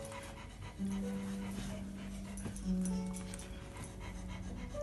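A dog panting as it tugs at and chews a rope toy, over background music with long held notes.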